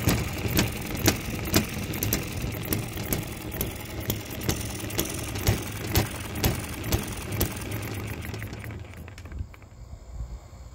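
Microcosm M94 hit-and-miss model engine running, with a sharp pop about twice a second over a steady hum. The engine fades out and coasts to a stop about eight and a half seconds in.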